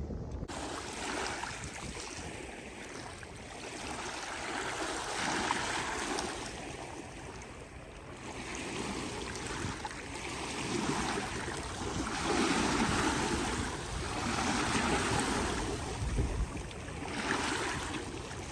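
Small Black Sea waves washing in and out on a pebble beach. The wash swells and ebbs every two to three seconds.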